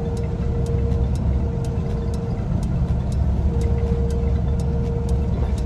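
Semi truck driving at highway speed, heard from inside the sleeper berth: a steady low engine and road rumble with a steady hum that fades out and back in. Faint clicks come about twice a second throughout.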